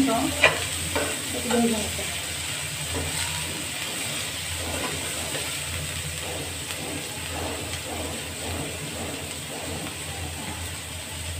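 Chopped onions and green chillies sizzling steadily in hot oil in an aluminium pan as they fry toward a reddish-brown colour. A metal spatula clicks and scrapes against the pan a few times in the first couple of seconds.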